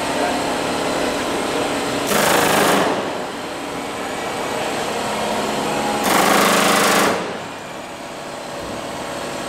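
Pneumatic rivet gun hammering rivets into the aluminium skin of an aircraft wingtip, in two bursts of about a second each, some four seconds apart. A steady mechanical hum runs underneath and drops after the second burst.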